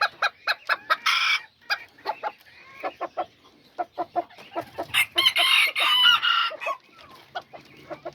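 Kikiriki bantam chickens clucking in quick runs of short calls, with a rooster crowing for about two seconds, starting about five seconds in.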